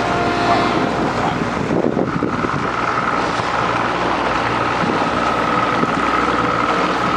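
Fishing boat's outboard motor running at speed across choppy lake water, with wind buffeting the microphone. A steady high whine comes in about two seconds in.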